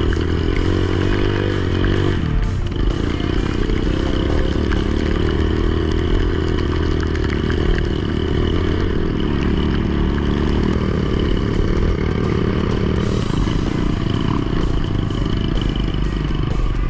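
Dirt bike engine running steadily at low speed on a rough, muddy trail, with some rattling from the bumps.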